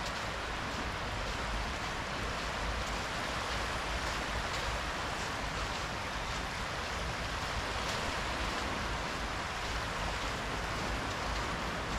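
Small, gentle waves washing up onto a sandy shore: a steady, even surf hiss with a low rumble underneath.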